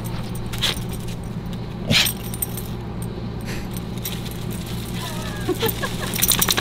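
Metal clinking and jingling from two dogs' collars and tie-out leads as they play: a few single clinks, then steadier jingling near the end. A steady low hum runs underneath.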